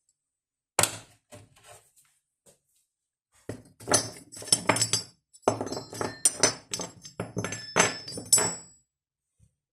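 Irregular knocks and metallic clinks of hard objects striking and rattling together, some with a brief high ring: one sharp knock near the start, then a busy cluster over the next several seconds.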